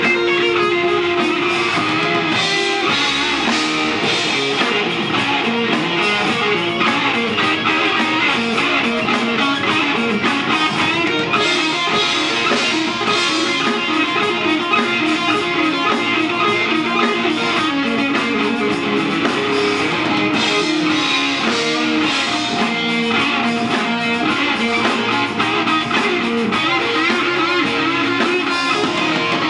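Live rock band playing loud, with electric guitars over a drum kit.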